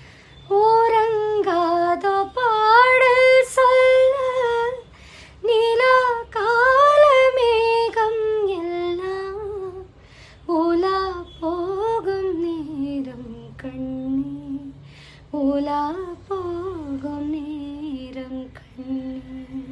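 A woman singing a Tamil film song solo and unaccompanied: slow phrases with long held, gliding notes and short breaths between them, the melody settling onto lower held notes near the end.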